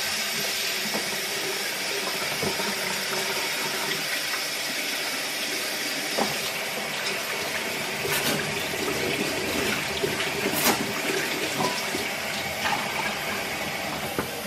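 Kitchen sink tap running in a steady stream as hands are washed under it, with a few light knocks.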